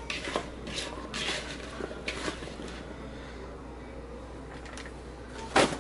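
Cut raw red potato chunks being tossed by hand in a bowl to coat them with olive oil: a patter of soft clacks and rubbing for the first two seconds or so, then quiet. A single sharp knock near the end.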